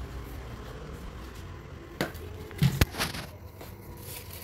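Steel thali plate being handled, with a few knocks and clinks about two to three seconds in, over a low steady hum.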